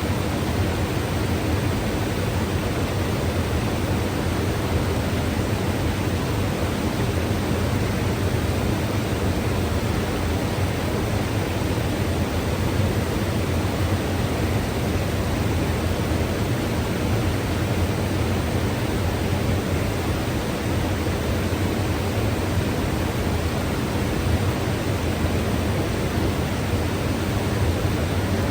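Mountain river rushing steadily: an even, unbroken roar of flowing water with a strong low rumble.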